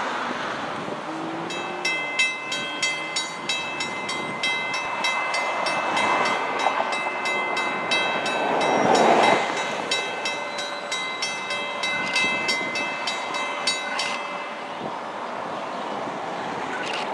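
Railroad grade-crossing warning bell ringing in quick, even strokes. It starts about two seconds in and stops abruptly about three seconds before the end, as crossing bells do once the gates are down ahead of an approaching train.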